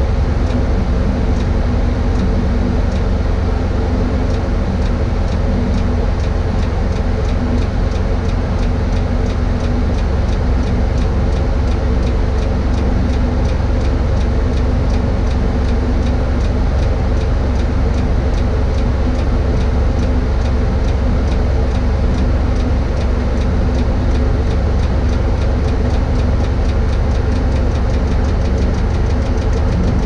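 Mobile crane's diesel engine running steadily, a loud, even drone with no change in pitch.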